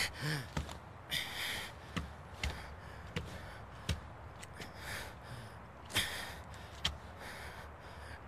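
A man's short grunt, then heavy breaths from a swordsman after a fight, with a few scattered sharp clicks.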